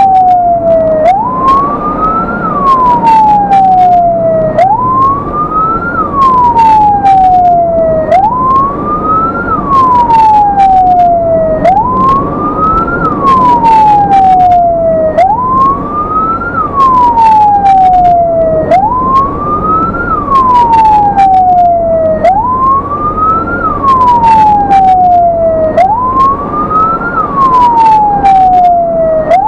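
Ambulance siren sounding a slow wail, each cycle a quick rise in pitch and then a longer fall, repeating about every three and a half seconds, heard from inside the ambulance over engine and road rumble, with scattered sharp clicks.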